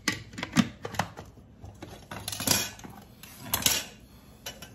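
Plastic clicks and knocks of a lid being seated onto an electric food chopper's bowl, then two short scraping clatters of kitchen utensils being moved on a wooden cutting board, and a last small click near the end.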